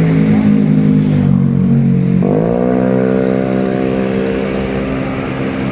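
Indonesian bus 'telolet' horn, a multi-tone air horn, sounding long held chords. About two seconds in, a new, fuller chord slides up briefly and holds.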